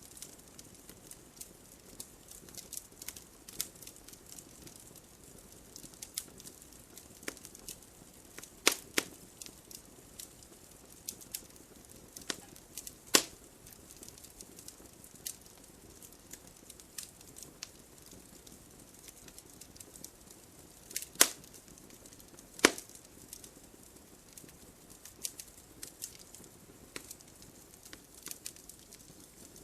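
Wood fire crackling: irregular sharp snaps and pops over a soft, steady hiss of burning, with four much louder pops scattered through it.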